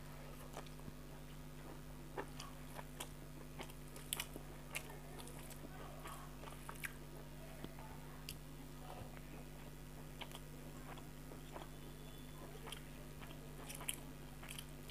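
Faint eating sounds of someone chewing rice with fried pointed gourd: soft chewing with scattered small mouth clicks and smacks, over a steady low hum.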